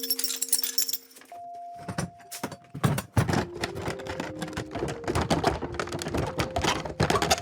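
Foley sound effects: a rapid, irregular run of knocks, taps and clicks, several to the second, thickening about three seconds in, over held musical tones.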